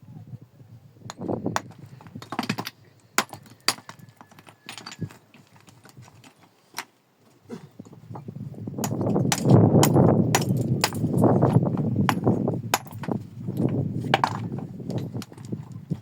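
Stones knocking and clacking against each other in sharp separate strikes, then a louder stretch of rough scraping and rubbing from about halfway in, as rocks are handled and shifted.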